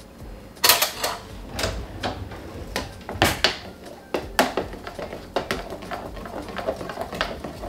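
A spoon stirring juice in a clear juice jug, clicking and knocking against the jug's sides in irregular taps.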